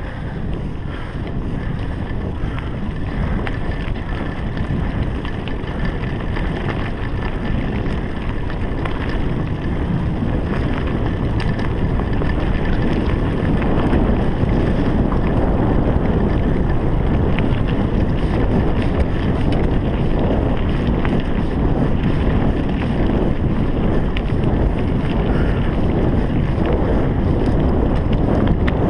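Wind rushing over the camera microphone while a mountain bike's tyres rumble along a dirt singletrack, with the bike rattling over the bumps. The noise grows a little louder about halfway through as the ride speeds up.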